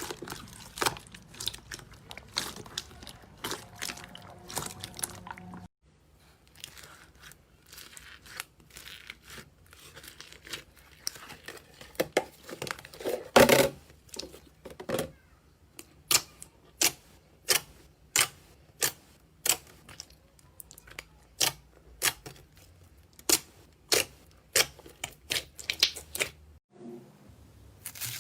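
Slime being squeezed, poked and stretched, making sharp sticky pops and crackles, with a fairly regular run of pops in the second half. The sound changes abruptly twice as one clip cuts to the next.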